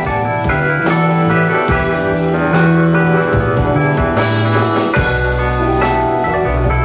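A live blues-rock band playing an instrumental passage: electric guitars over a drum kit with steady hits, a held bass line and a stage keyboard.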